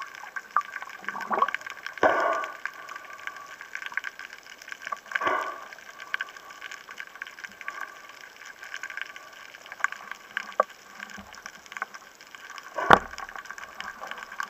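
Muffled underwater water noise through a camera housing, with a few gurgling swooshes of water movement and a sharp knock about thirteen seconds in.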